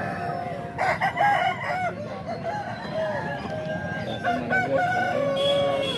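Roosters crowing and clucking, several calls overlapping, with one long drawn-out crow near the end.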